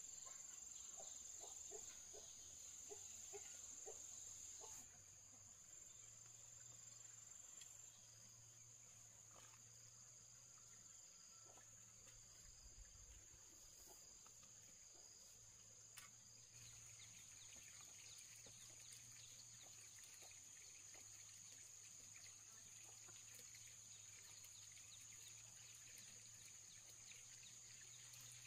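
Faint rural ambience: a steady, high-pitched drone of insects, with a faint low hum underneath.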